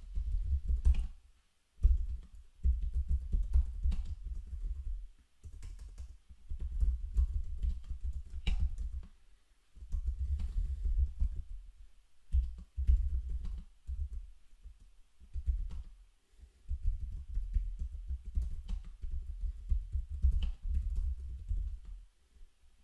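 Typing on a computer keyboard: runs of quick, dull keystrokes lasting a few seconds each, with short pauses between.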